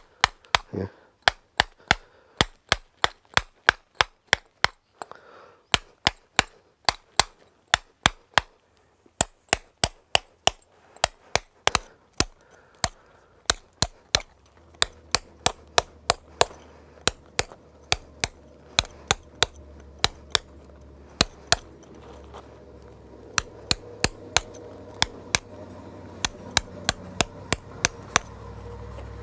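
Hand carving of tezontle, the porous volcanic stone: a hand-held stone used as a hammer strikes a steel chisel into the rock in a steady run of sharp taps, about two to three a second, pausing briefly a couple of times.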